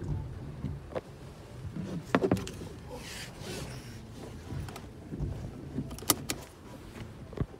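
Inside a small car's cabin: a low steady rumble with scattered clicks and knocks from hands handling the interior fittings, including a pair of clicks close together near the end, and a short hiss a few seconds in.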